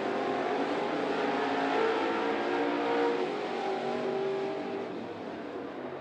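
Dirt late model race car engines running hard at full throttle just after a green-flag restart, their pitch swelling and easing as the cars race through the turn, fading somewhat near the end.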